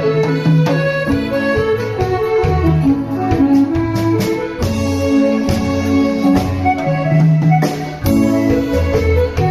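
Instrumental accompaniment for an enka-style song, with held melody notes over a bass line and a steady beat, no singing.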